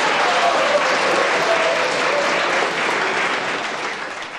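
A crowd applauding, the clapping dense at first and dying down toward the end.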